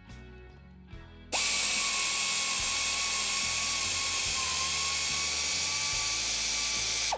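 Pneumatic air ratchet running for about six seconds, backing out a rocker-box bolt: a loud hiss of exhaust air with a steady whine that dips slightly midway. It starts abruptly about a second in and cuts off sharply near the end.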